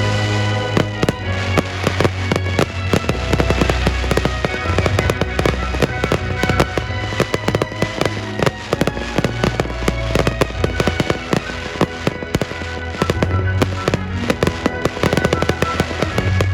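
Daytime fireworks starmine: many shells bursting in rapid succession, a dense run of sharp bangs and crackles, over music played along with the display.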